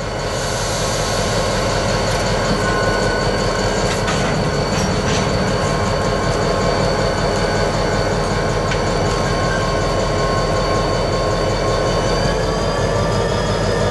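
EMD SD40-2 diesel locomotive's turbocharged 16-cylinder 645 engine running steadily under way. It gives a continuous low drone with steady high whining tones over it.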